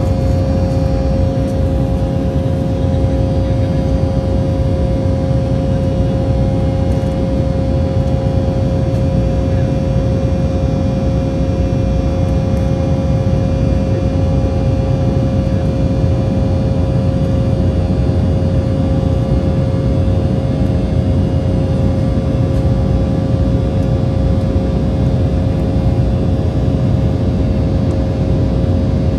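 Cabin noise of an Embraer E190 airliner in flight, heard from a seat beside the wing: a steady, loud rush of airflow and engine noise from its General Electric CF34-10E turbofans, with a steady hum tone running through it.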